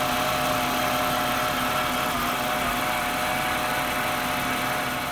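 1996 Jaguar XJ6's straight-six engine idling steadily and smoothly, purring, just after an oil change with fresh oil.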